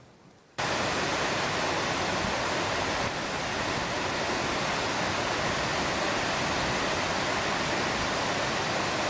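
Rushing river water: a steady, even rush that cuts in suddenly about half a second in.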